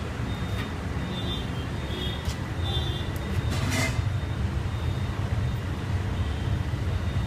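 Parboiled rice being scooped from a pot of boiling water with a plastic bowl and tipped into the biryani pot, a few brief splashes and scrapes, over a steady low rumble.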